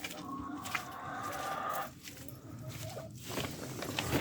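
Chickens clucking, with one longer drawn-out call through the first two seconds, then shorter calls.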